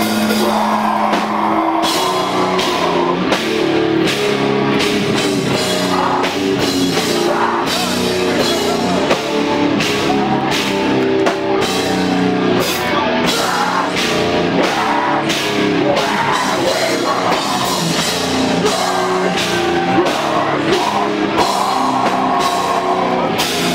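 Loud live heavy rock band playing: distorted electric guitars and bass over a drum kit. A held chord opens, the drums come in hard about two seconds in with a fast, steady beat, and a chord rings out again near the end.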